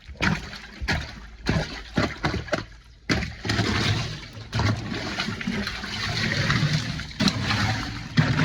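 A few sharp knocks, then from about three seconds in, water running and splashing steadily into the chest-freezer ice bath.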